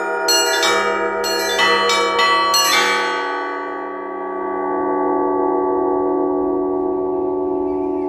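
Russian church bells rung by hand from ropes: a last run of strikes on the small and large bells in the first three seconds, then the ringing stops and the bells hang on in a long hum with a slow wavering beat.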